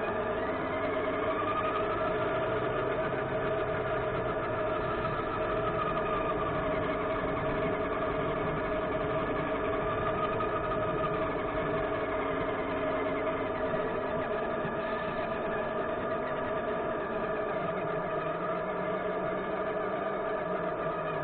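Remote-control model bus's drive motor running, heard from inside the bus: a steady mechanical whine with several pitched tones that glide up and then back down as it speeds up and slows, about a second in and again around ten seconds in.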